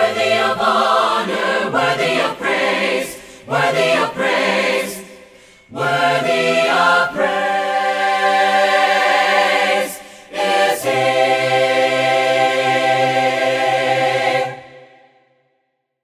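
Choir singing the closing phrases of a gospel praise song in harmony, ending on a long held chord that fades out about a second before the end.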